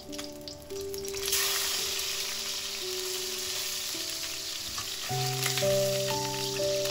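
Batang (Spanish mackerel) steak frying in hot oil, a steady sizzle that grows louder about a second in as the steak is turned over with a spatula.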